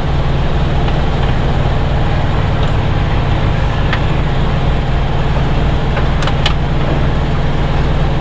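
A truck engine idling with a steady low drone, with a few light clicks and taps about four seconds in and again after six seconds.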